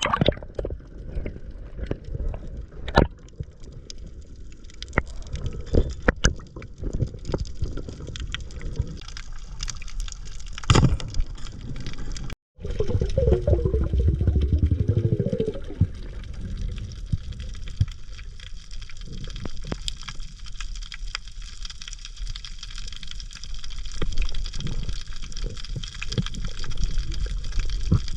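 Water sounds: a noisy wash with scattered sharp clicks, and a short stretch of bubbling just after a break about twelve seconds in, typical of a camera in or at the surface of the sea during a dive.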